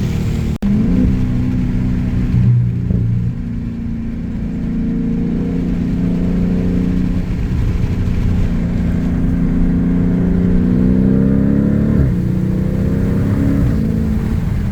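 Car engine with an aFe aftermarket exhaust, heard from inside the cabin while accelerating. The engine note breaks off for an instant near the start, holds fairly steady, rises slowly, then drops suddenly about twelve seconds in and climbs again.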